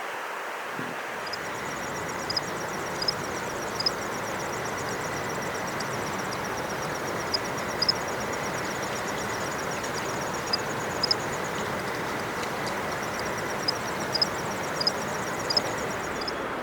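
A steady rush of flowing water, with a fast, very high trill running through most of it and repeated sharp chip notes from small birds that stand out above the water.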